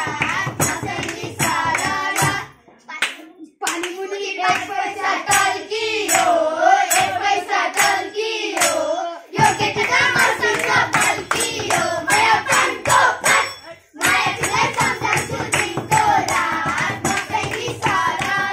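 A group of children singing a Nepali Tihar folk song together, with hand clapping keeping a quick steady beat and a madal drum played along. The singing and clapping drop away briefly about three seconds in and again about fourteen seconds in.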